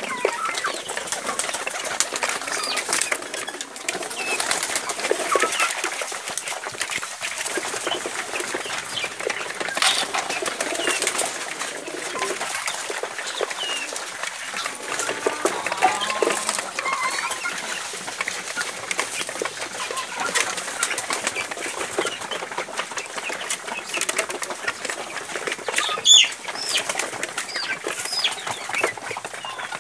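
A mixed flock of pigeons and free-range chickens: wings flapping, with many small clicks and scuffles of pecking at feed and scratching on the ground. Short high chirps come now and then, one louder near the end.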